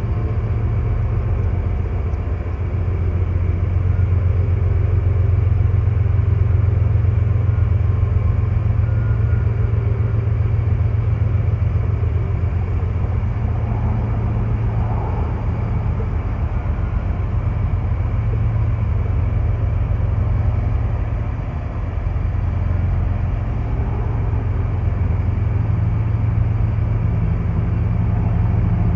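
Diesel locomotive engines on a freight train running with a steady low drone, swelling slightly a few seconds in and dipping briefly near the end.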